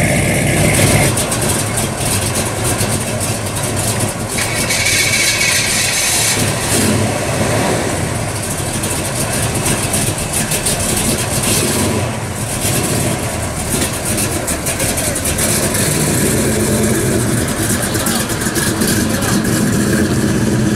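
Classic American cars' engines running as the cars drive off slowly through a parking lot, with people talking in the background.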